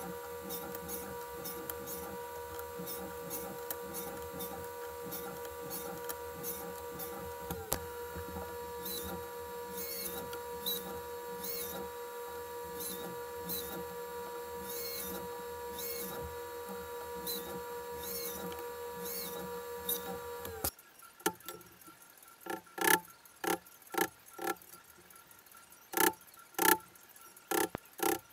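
A workshop machine hums steadily, with a faint tick about once a second in the middle stretch. About two-thirds in it stops abruptly, and a hammer strikes a wood chisel in a series of sharp, loud blows, chopping a joint.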